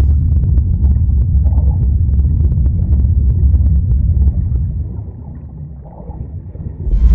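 Deep, steady underwater rumble from a soundtrack sound effect. It fades down about five seconds in, then swells again near the end.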